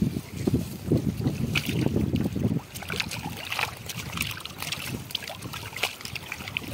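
Wind buffeting the microphone with a gusty low rumble for the first two and a half seconds, then scattered splashes and drips of water on a river.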